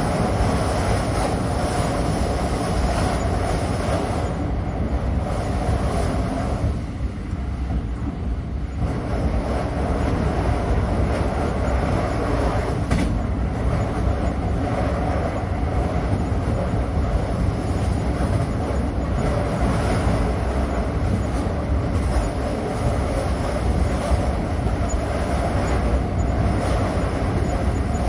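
Steady rumble and rolling noise of a moving train heard from inside a passenger carriage, heaviest in the low end, easing briefly about seven seconds in.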